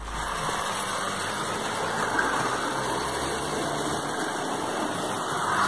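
Toy train running on three-rail O-gauge track: the Marx 400 locomotive's electric motor whirring steadily, with its cars rolling over the rails.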